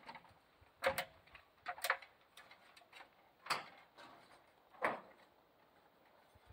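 A handful of separate sharp knocks and taps, about five spread over several seconds with the loudest one at about 3.5 s, from hand work on the garage's siding and wall.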